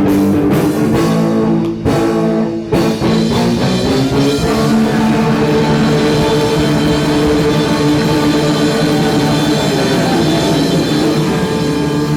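Live rock band with electric guitar and drum kit playing; about three seconds in, the drum hits stop and the band holds a sustained chord that rings on.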